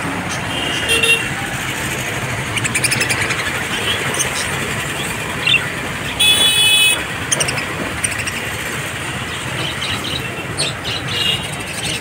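Busy street ambience with steady traffic noise and budgerigars chirping in short high calls. A vehicle horn toots once, for under a second, about six seconds in.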